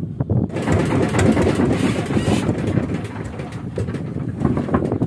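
Small fishing boat's engine running, a dense low rumble, kept running while fishing against the wind and current. Wind buffets the microphone, with a brighter rush of hiss from about half a second in to two and a half seconds.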